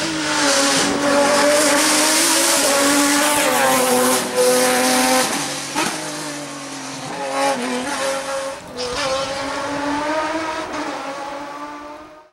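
Ferrari 550 GT's V12 engine at racing revs, climbing in pitch and dropping back again and again as it shifts and brakes through the bends. It fades out near the end.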